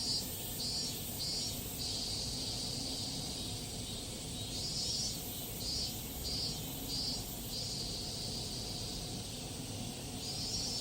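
Cicadas singing: a high buzzing song that goes in phrases of short pulses, about three a second, alternating with a long steady buzz, repeating every few seconds over a low steady background noise.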